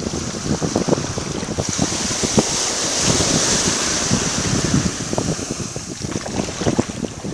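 Wind buffeting the microphone, with a small wave breaking and washing up the sand. The wave's hiss swells about two seconds in and fades before the end.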